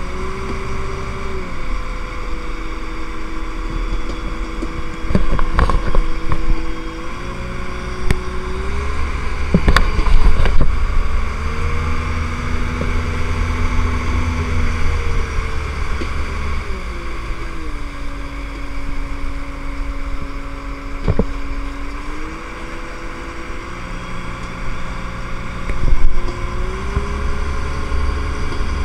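Parasail tow boat's engine running under load. Its note steps up and down several times as the throttle is eased and opened again, over a rush of wind and hull noise, with a few sharp knocks.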